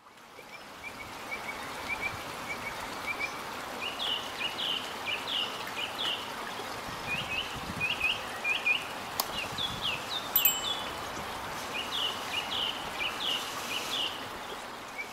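Small birds chirping in short, quickly repeated phrases over a steady trickle of running water from a garden koi pond.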